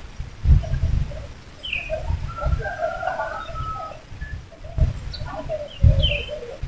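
Birds calling: repeated low cooing notes and a few short high chirps, over irregular low rumbles that are the loudest sound.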